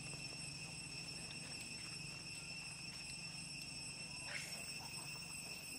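Faint, steady high-pitched insect drone, with a low hum beneath it and one short sharp sound about four seconds in.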